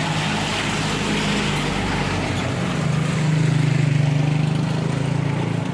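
A motor vehicle's engine running with a steady low hum. It grows louder about three seconds in and eases again near the end.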